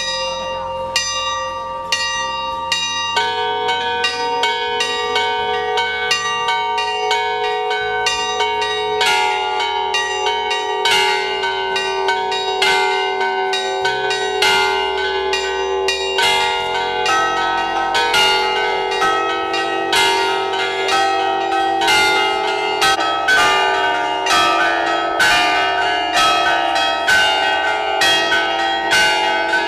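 Orthodox church bells in a belfry rung by hand with ropes, many overlapping strikes ringing on into each other. The strokes come about once a second at first, then faster, several a second, from about three seconds in.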